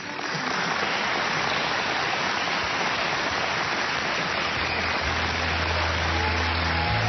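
Theatre audience applauding, a dense steady clapping that starts suddenly as the song ends. A low sustained music note comes in under it about five seconds in.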